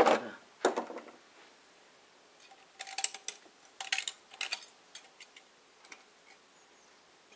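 Light metallic clicks and clinks of metal parts being handled on a tractor's diesel cylinder head: two sharper knocks at the start, then small scattered clusters of ticks through the middle.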